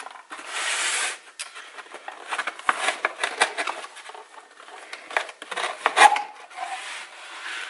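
Corrugated cardboard box being opened by hand: flaps sliding and rubbing against each other, with scrapes and taps. A longer rub comes near the start, and the loudest, sharpest sound about six seconds in.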